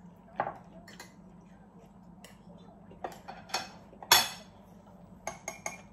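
Wooden chopsticks clicking and tapping against ceramic bowls and dishes while eating: scattered single clicks, the loudest a little after four seconds in, over a faint steady hum.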